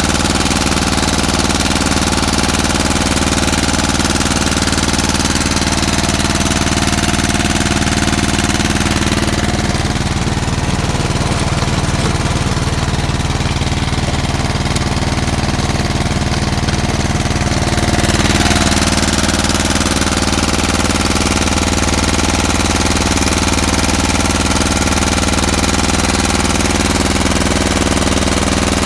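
Pasquali 946 walking tractor's engine running steadily as it drives a rotary tiller through soil. The higher part of the sound is duller for several seconds in the middle.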